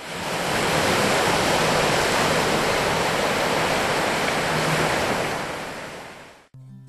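Surf: small waves breaking and washing up a sandy beach, a steady rushing noise that cuts off suddenly near the end.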